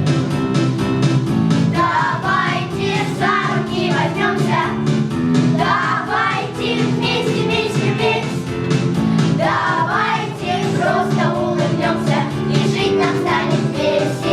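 Children singing a song together over instrumental accompaniment.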